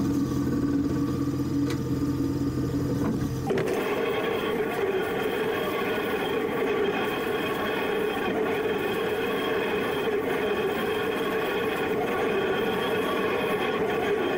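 Tractor engine and the hydraulically driven Tanco bale wrapper running steadily while a round silage bale is turned and wrapped, a steady mechanical drone. The drone changes abruptly about three and a half seconds in to a different, busier note.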